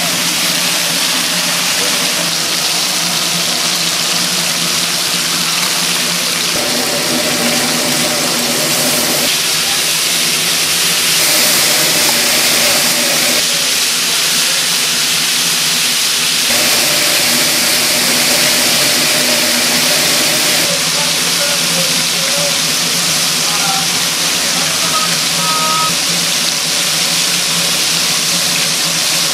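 Fish grilling: a steady hiss over a constant machine hum, the mix shifting every few seconds.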